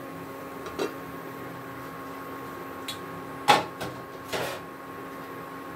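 Steady hum of a running induction cooktop, with a few short knocks and clatters from handling utensils and cookware. The loudest knock comes about three and a half seconds in.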